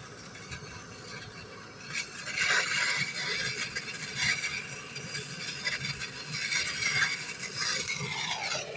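Brazing torch flame hissing steadily as it heats a copper tube joint on a refrigerator compressor. It grows louder about two seconds in.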